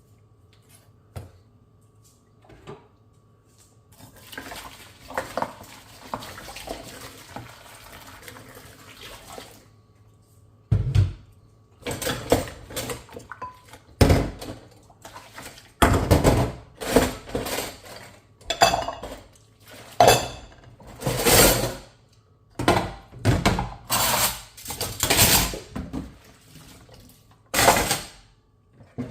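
Dishes and cutlery being washed by hand in a sink. About four seconds in there is a steady hiss lasting some five seconds. From about eleven seconds on come repeated loud clinks and clatters of plates and utensils knocking together, with water swishing.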